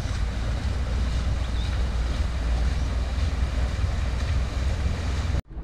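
Wind buffeting an outdoor camera microphone: a steady, ragged low rumble with a faint hiss over it, breaking off abruptly near the end.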